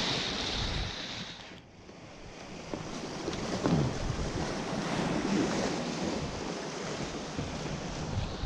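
Sea surf washing against a rocky shore, with wind buffeting the microphone. The surf eases off about two seconds in, then builds again.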